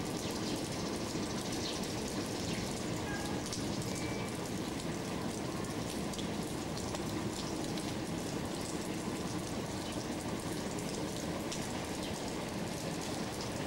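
Steady rain falling: an even hiss with scattered small ticks of drops.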